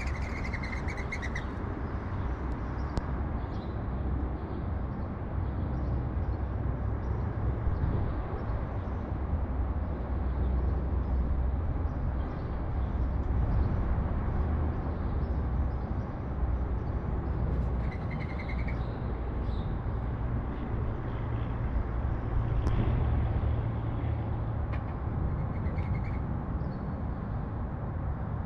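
Steady low rumble of city traffic, with a few short bursts of sparrow chirping at the start, about two-thirds of the way in, and near the end.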